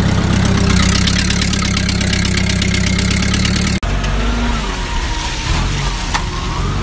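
Truck engine idling, steady and close. After a cut about four seconds in, heavy machinery runs more distantly, with a wavering whine and one sharp click.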